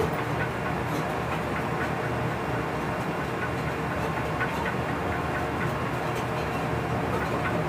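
Steady running noise of a DB class 139 electric locomotive heard from inside its cab: the even rumble of wheels on rail with a low hum, and faint ticks now and then.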